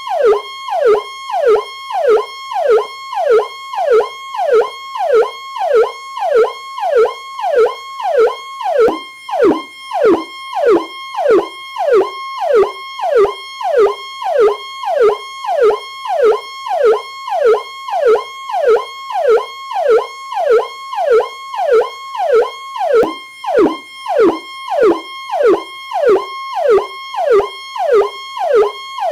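Police Powercall electronic siren: a high held tone that repeatedly drops sharply and snaps back up, a little more than once a second.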